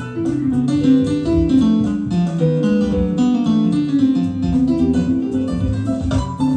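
Instrumental music with guitar and piano, played back from cassette tape on an Akai GX-Z9100EV tape deck.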